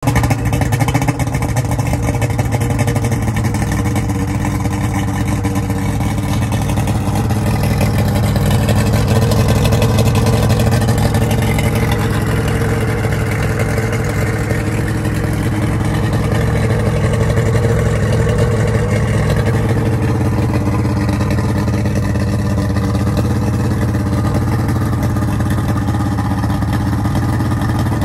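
Yamaha 250 hp OX66 V6 two-stroke outboard running steadily on a test stand with its top cowling off, so the engine is heard bare.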